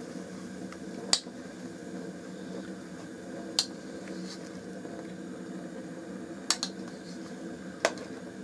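A portable gas cooker runs with a steady hum under a pot of vinegar, brazilwood chips and alum that is being boiled down for wood stain. Five sharp clicks cut through it, two of them close together.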